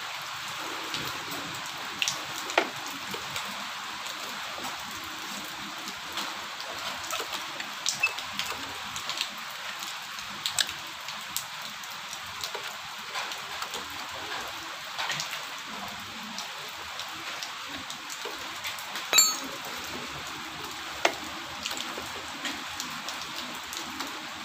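Steady rain falling, an even hiss with scattered drips and light clicks, one sharper click about two-thirds of the way through.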